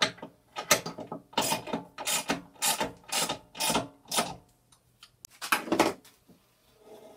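Ratchet wrench with a 6 mm hex socket clicking through short strokes, about two a second, as it tightens a bandsaw motor's mounting bolt back down after the belt tension has been set. There is a pause, then one last burst of clicks near the end.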